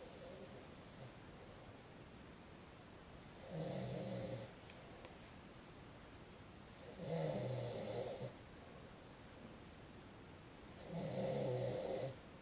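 A man snoring in his sleep: three snores, each lasting about a second, coming at a regular pace of roughly one every three and a half to four seconds.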